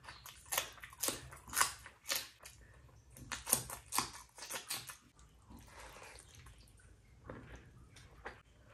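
Wet smacking and squelching of someone eating rice and curry: about two sharp smacks a second for the first five seconds, then softer and more scattered.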